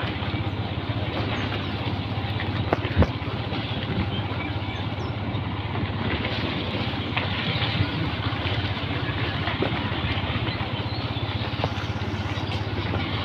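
Motorcycle engine running steadily while riding at low speed, with an even rush of road and air noise and one sharp knock about three seconds in.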